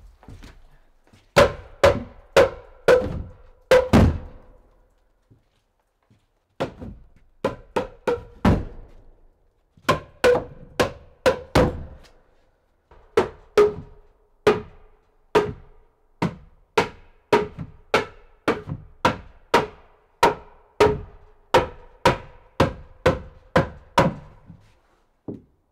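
Runs of sharp percussive knocks, about one and a half a second, each with a short ringing tone, breaking off briefly twice.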